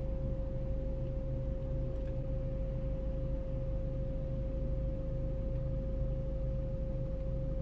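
A steady, unwavering pure tone held at one pitch, over the low hum of a car idling in a traffic jam.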